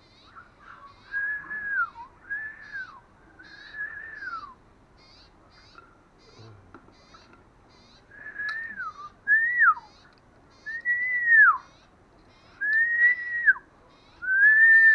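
Green-billed malkoha giving clear whistled calls. Each note is held briefly at one pitch and then drops steeply, and the notes come in runs about a second apart. Fainter short high chirps sound in the background.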